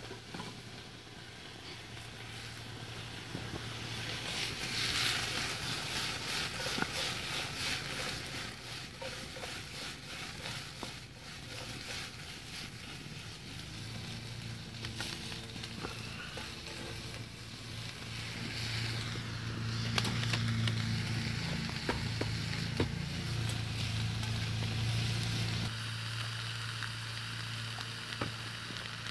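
Food sizzling and crackling as it fries in a pan, with a steady hiss full of small pops that swells and fades. A low steady hum joins about halfway through and stops shortly before the end.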